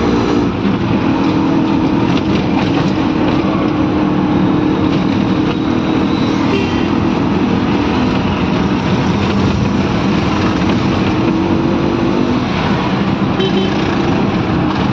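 Auto-rickshaw engine running steadily under way, heard from inside the open cabin along with road and traffic noise.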